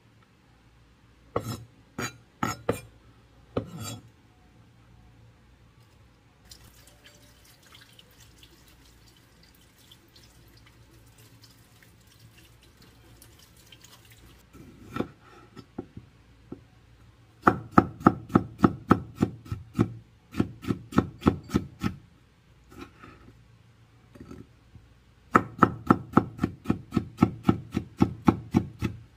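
A cleaver chopping on a wooden cutting board: a few separate knocks, then a tap running for several seconds, then two long runs of rapid chopping at about five strokes a second.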